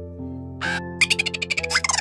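Background music with a crow cawing once about half a second in, then a dense chatter of many short animal calls starting about a second in.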